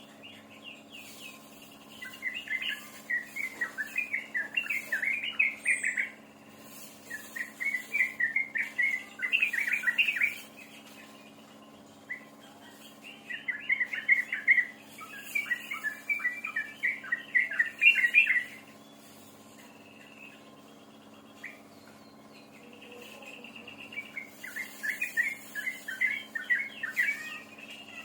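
A songbird singing in long phrases of rapid, chattering notes, each phrase lasting a few seconds with pauses between, over a steady low hum.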